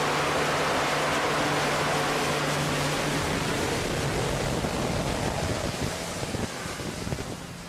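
Jet engines running on an aircraft carrier's flight deck: a loud, steady rush with a low hum underneath that fades about three seconds in. Near the end the rush eases and turns gusty.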